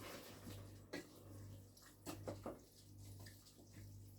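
Faint stirring of bulgur in a pot with a spoon: a few soft clicks and scrapes of the spoon against the pot, about a second in and again a little after two seconds, over a low steady hum.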